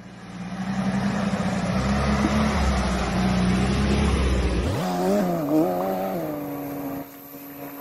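Willys flatfender Jeep engine running on the trail. It is loud and steady at first; a little under five seconds in, the note changes, wavers up and down in pitch for a second or so, then settles to a steady drone.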